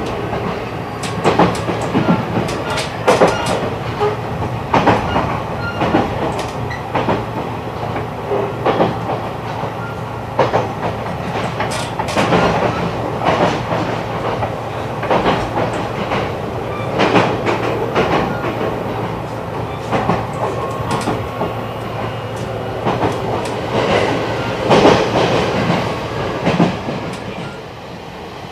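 E129 series electric train running, heard from inside the car: a steady running rumble with irregular clacks and knocks from the wheels on the track. The level eases off a little near the end.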